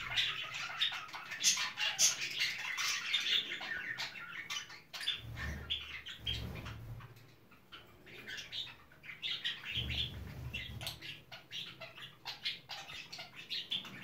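Cage birds chirping and chattering, many short high calls overlapping, as in a room full of lovebirds and other small finches. A low rumble comes twice, about five and ten seconds in.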